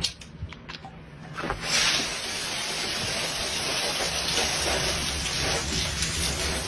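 Coca-Cola foaming up inside a plastic bottle, a steady fizzing hiss that sets in about a second and a half in, after a few small clicks.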